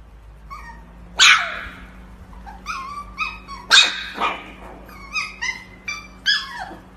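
A husky-type puppy barking and yipping in a high voice. Two louder barks, about a second in and near the middle, are mixed with a string of short yips.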